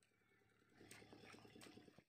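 Near silence: faint open-air ambience with a low, rapid, even pulsing underneath.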